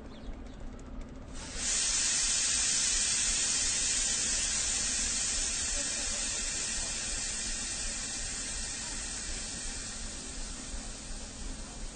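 A train vents with a loud hiss that starts suddenly about a second and a half in, then slowly fades, over the low background of a station platform.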